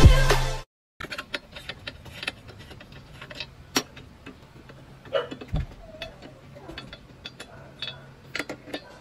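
Intro music cuts off under a second in. Then come irregular small metal clicks and taps of a T-handle socket wrench working the bolts in a scooter's under-seat compartment, with one dull knock about five and a half seconds in.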